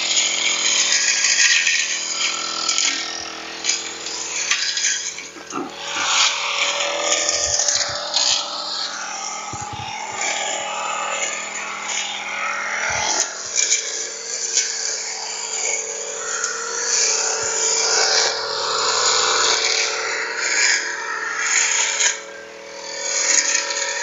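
Backpack four-stroke brush cutter running steadily while its cutting head swishes through grass and weeds. The engine note is smooth and not too loud, and the cutting noise dips briefly twice.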